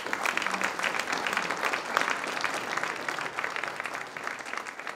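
Audience applauding, a dense patter of many hands clapping that starts at once and eases off a little toward the end.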